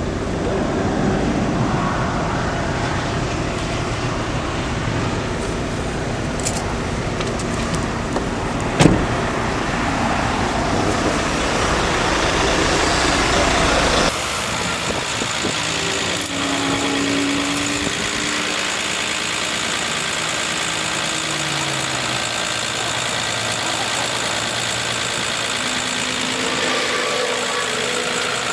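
Motor vehicle and road traffic noise: a dense, steady rush with one sharp click about nine seconds in. About halfway through it changes abruptly to a lighter hiss with an engine humming and sliding slowly in pitch.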